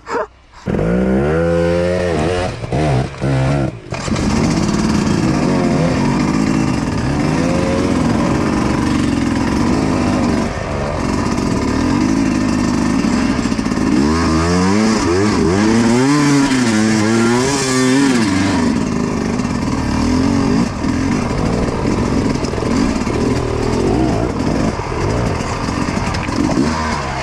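Dirt bike engine being ridden hard: a few short throttle blips in the first four seconds, then continuous running with the revs repeatedly rising and falling.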